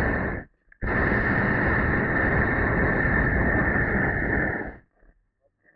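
Hot air balloon's propane burner firing in blasts: a steady rush with a high tone through it. It cuts off about half a second in, fires again a moment later for about four seconds, then stops abruptly.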